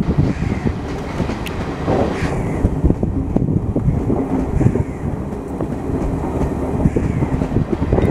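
Passenger coaches of a Garib Rath Express train rolling past close by: a steady rumble with the wheels clattering over rail joints.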